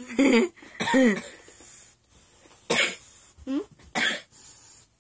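A man coughing about five times in short, harsh bursts, some of them voiced.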